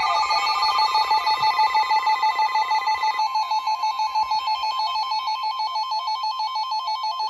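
Emergency Alert System attention signal: a loud, harsh, continuous alert tone sounding between two broadcast warnings, with a second higher tone layered over it that cuts off about three seconds in.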